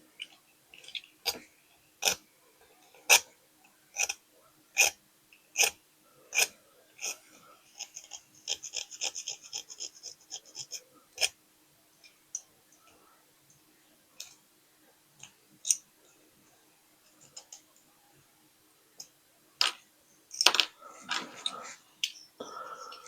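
Hand-tool work on a small die-cast metal toy truck. Sharp clicks and taps come about once a second for several seconds. A short rasping stretch of quick repeated strokes follows, then scattered taps and a cluster of handling noise near the end.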